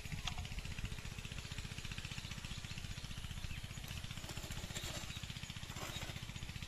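Hand hoe chopping and scraping into dry, cracked soil, a few soft scrapes and knocks near the end, over a steady low rumble.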